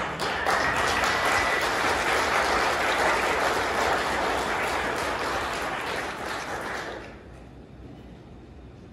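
Congregation applauding, a dense patter of many hands clapping that fades out about seven seconds in.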